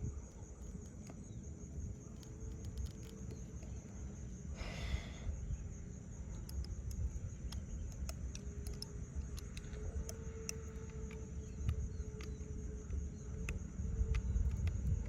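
Open-air ambience: a steady high-pitched insect drone over a low, uneven rumble like wind on the microphone, with a faint wavering hum, scattered light clicks and a brief hiss about five seconds in.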